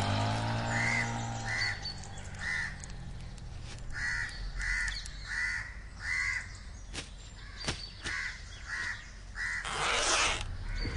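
A bird calling over and over, about a dozen short calls spaced unevenly, while background music fades out over the first two seconds. Two sharp clicks come in the middle and a short rush of noise near the end.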